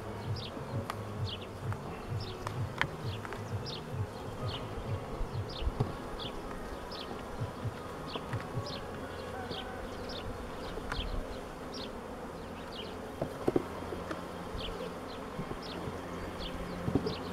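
Honeybee colony buzzing from an open hive, a steady hum, with a few sharp knocks of wooden hive frames being shifted near the end.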